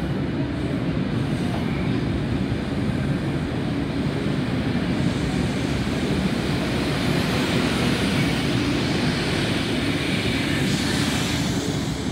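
Sydney Trains C set stainless-steel double-deck electric train departing and running past at close range, its wheels and running gear making a steady rumble. A hiss grows stronger in the second half as it picks up speed.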